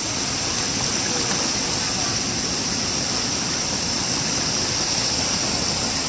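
Mountain stream water rushing over a rock ledge in a small cascade: a steady, even rush.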